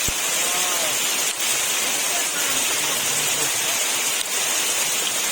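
Very heavy rain falling steadily on trees, a dense, even hiss.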